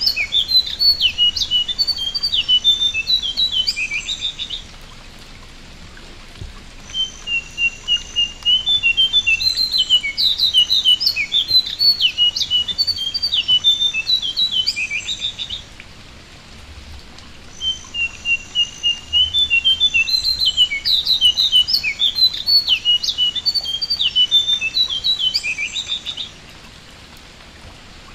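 Male jongkangan songbird singing in three bouts of several seconds each: rapid strings of high chirping notes with short pauses between. Under them is a steady faint patter of light rain on the water.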